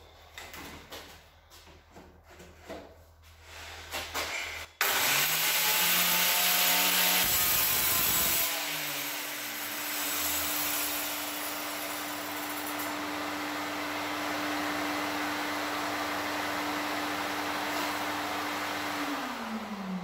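Light handling clicks, then about five seconds in a Makita plunge-cut saw with a diamond blade starts with a rising whine and is run through a cut along its guide rail, a cut in sandstone that dresses the dull diamond blade sharp again. The cut is loudest for the first few seconds, then the running holds steady, and near the end the pitch falls as the machine winds down.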